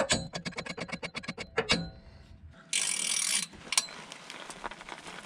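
Hammer taps on a socket being driven onto a rusted exhaust clamp bolt, then a ratchet wrench clicking in quick runs as it works the bolt. A loud, brief rasping noise comes about three seconds in.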